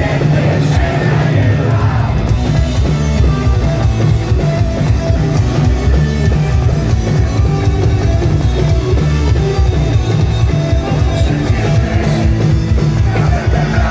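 Punk rock band playing live at full volume: distorted electric guitars, bass and drum kit.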